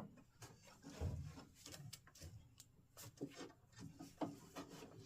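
Faint handling noises at a workbench: scattered light clicks, taps and rubbing as small metal latch parts and hand tools are moved and worked.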